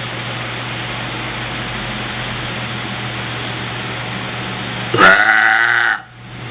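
A girl's loud, pitched burp about five seconds in, lasting about a second, following soda; before it only a steady hiss.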